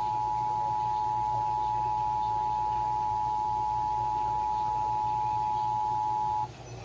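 Emergency Alert System two-tone attention signal, 853 Hz and 960 Hz sounding together, received over NOAA Weather Radio: a steady, loud tone that cuts off about six and a half seconds in, leaving radio hiss. It heralds a tornado warning.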